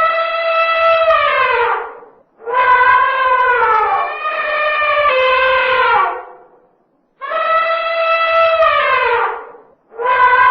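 Elephant trumpeting: a series of long calls of two to four seconds each, with short gaps between, each falling in pitch as it trails off. A fourth call begins near the end.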